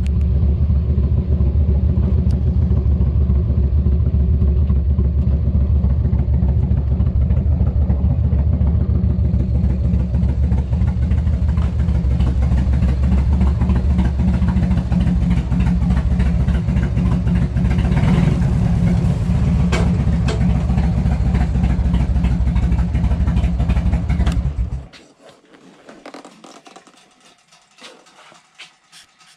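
Harley-Davidson touring motorcycle's V-twin engine running steadily. It is being tried out right after a fresh primary oil change and clutch adjustment. It shuts off suddenly about 25 seconds in, leaving only a few faint clicks.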